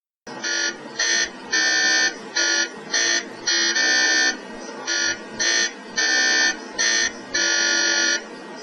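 MRI scanner's gradient coils buzzing in pulses: a loud, high electronic buzz that starts a moment in and sounds in an uneven rhythm of short bursts and longer ones of about a second, over a fainter steady hum.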